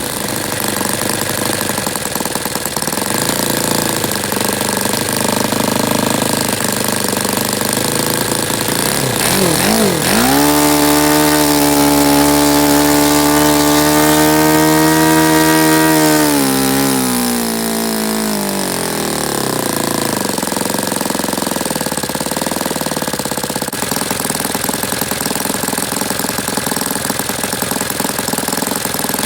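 Saito FA-120S four-stroke glow model aircraft engine running. About ten seconds in it is throttled up quickly, holds a high, steady pitch for about six seconds, then winds back down to a lower running speed.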